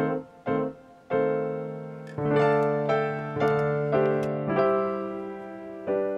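Background music: a piano playing a slow tune, each note or chord struck and left to fade.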